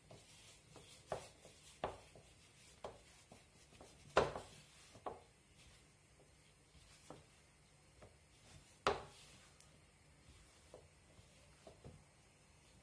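Hands kneading a soft yeast dough in a bowl, working flour in: quiet squishing and rubbing with irregular soft thumps of the dough against the bowl, two of them louder, about four and nine seconds in.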